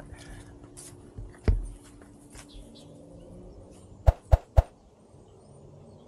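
A dull thump, then three sharp, loud taps about a quarter second apart, close to the microphone, like knocks from handling the camera.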